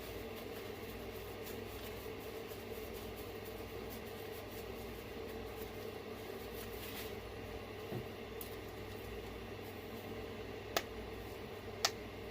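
Steady background hum with faint handling noise as small parts are worked by hand, and two sharp clicks near the end, about a second apart.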